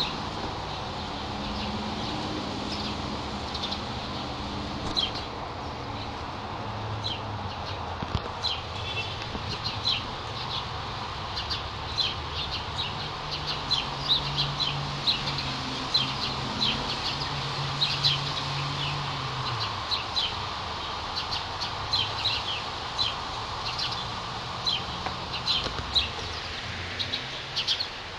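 Small birds chirping outdoors: many short, high chirps scattered throughout, over a steady low hum that grows louder in the middle.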